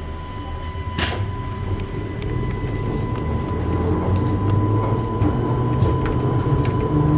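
Converted ex-London Underground D Stock train (Class 230) heard from inside the carriage as it pulls away: a low running rumble that grows louder and rises in pitch as the train gathers speed, with a steady high whine and a single knock about a second in.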